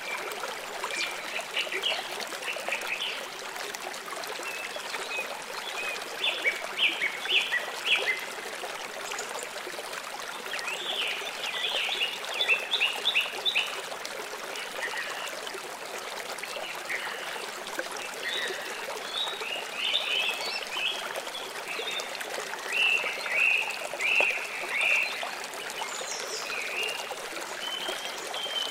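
A young Russian tortoise biting and chewing leafy greens: bursts of quick, crisp crunching clicks every few seconds over a steady hiss.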